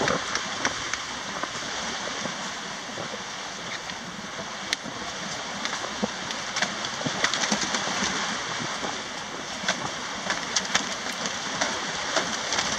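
Sea water rushing and splashing along the hull of a sailing yacht under way, a steady noisy rush with scattered sharp clicks and knocks throughout.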